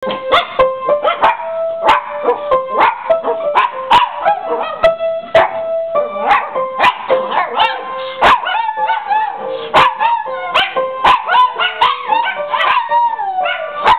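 A piano playing, with Maltese dogs howling and yipping along to it. The howling, with its wavering, bending pitch, comes in more strongly from about six seconds in.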